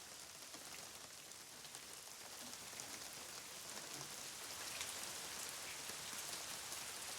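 Heavy rain falling, a steady hiss of many fine drops that grows gradually louder.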